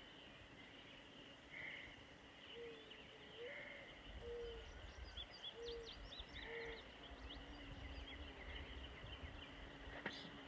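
Faint songbirds at dawn: a short call repeated about every two seconds, a few low, short notes in the middle, and quick high chirps, over a light low rumble of wind on the microphone.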